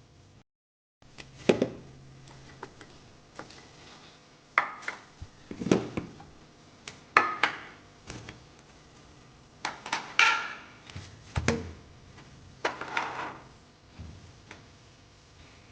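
Containers and kitchenware being handled and set down: a series of separate knocks, clacks and clinks, about ten in all, after a brief gap of total silence near the start.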